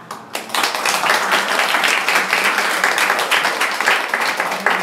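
A group of people applauding. The clapping starts about half a second in and dies away near the end.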